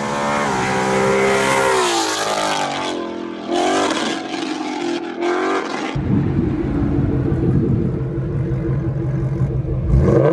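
Ford Mustang GT 5.0 V8 exhaust through long-tube headers and a Corsa exhaust with resonators: the engine note rises and falls as the car accelerates past. After a sudden change it settles to a steady low rumble, and near the end the revs climb as the car pulls away.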